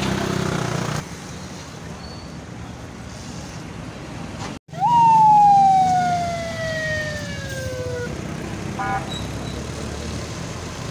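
Ambulance siren: a single wail that rises quickly and then falls slowly over about three seconds, about halfway through, over steady road and engine noise.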